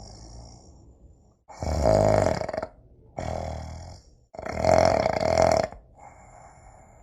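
A person snoring: two loud snores about a second long each, roughly three seconds apart, with quieter breathing between them.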